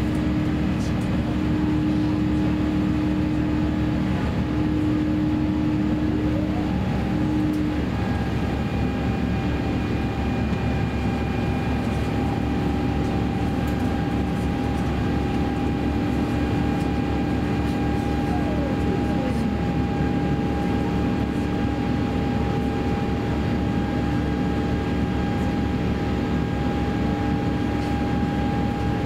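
Cabin noise of an Airbus A350-900 climbing after takeoff: the Rolls-Royce Trent XWB engines and airflow make a steady roar with several held hums. One tone glides upward about a quarter of the way in and then holds, and a fainter tone slides downward a little past the middle.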